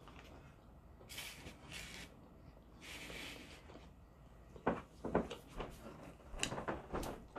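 Close-up mouth noises of a person eating: a couple of soft breathy hisses, then, from about halfway through, a run of short wet lip smacks and sucking clicks as fingers are licked clean.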